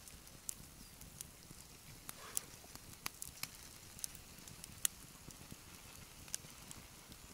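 Campfire burning under a grill grate, crackling with sharp, irregular pops.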